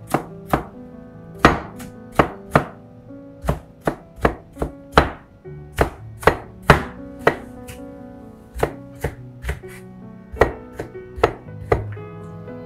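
Chef's knife julienning peeled Korean radish on a plastic cutting board: sharp, irregular chops about two a second, which stop near the end.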